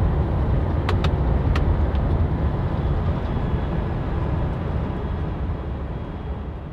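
Steady low rumble of engine and road noise inside a vehicle's cabin while driving, with two faint clicks about a second in; the sound slowly fades toward the end.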